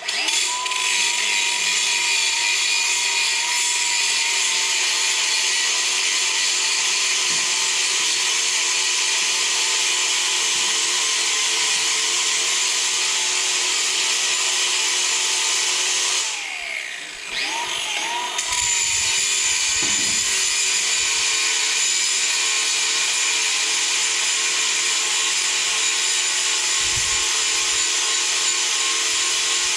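A power tool's motor starts abruptly and runs steadily and loudly. About two-thirds of the way through it briefly winds down and spins back up, as if released and re-triggered.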